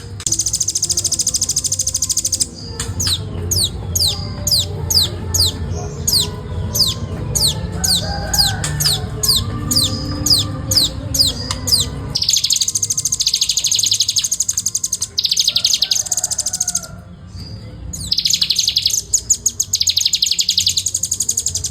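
Velvet-fronted nuthatch calling in long, fast, tightly packed high trills. Between the trills comes a run of separate notes, each sliding sharply down in pitch, about two a second. The trilling resumes and runs on with a short break.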